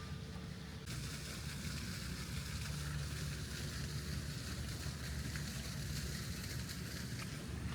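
A large vehicle's engine running with a steady low rumble, joined about a second in by a steady hiss that starts abruptly and carries on.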